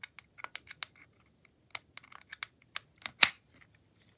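A run of small sharp clicks of metal and plastic as a hex bit on an extension is fitted into the bit holder of a Parkside PASD 4 B2 cordless screwdriver, with one louder click about three seconds in.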